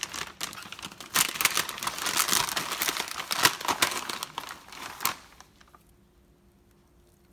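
Plastic snack bag of Oreo Minis crinkling and rustling as it is handled, for about five seconds, then stopping.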